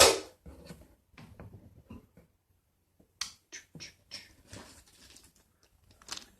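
Small objects being handled and rummaged through in a box: a sharp knock at the start, then scattered light clicks, taps and brief rustles.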